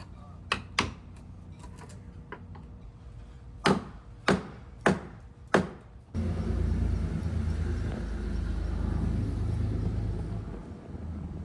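Four sharp knocks, evenly spaced about half a second apart, then a low steady machine rumble starts suddenly about six seconds in and runs on, easing a little near the end.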